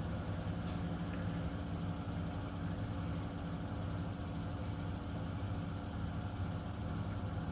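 Miele W1 front-loading washing machine's drum and motor running with a steady hum during the interim spin after the main wash.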